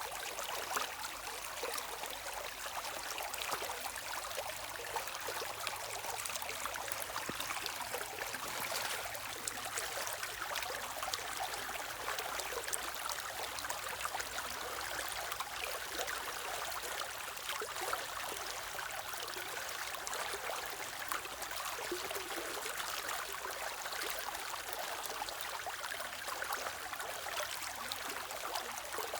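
Stream water running over stones, a steady splashing and trickling rush with many small bright droplet sounds.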